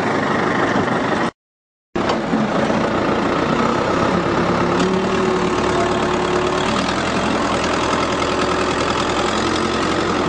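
An engine running steadily at idle, broken by a brief cut to total silence about a second and a half in.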